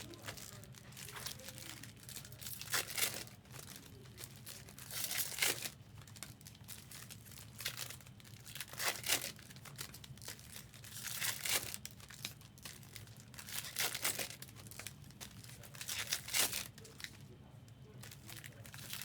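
Trading card pack wrappers (2023 Topps Chrome F1 hobby packs) being torn open and crinkled by hand, in short bursts every two to three seconds, over a steady low hum.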